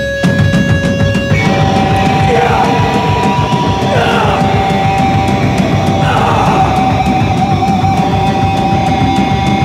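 Live heavy band music played loud: distorted electric guitar with bass and drums. The full band crashes in just after the start, and a high held guitar tone rings over it from about a second and a half in.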